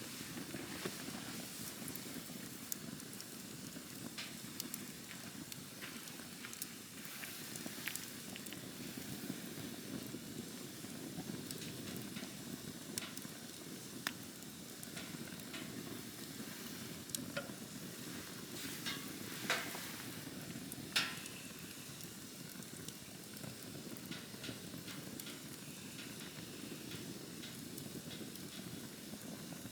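Wood campfire burning: a steady low rush of flames with scattered crackles and pops, two of them louder a little after two-thirds of the way through.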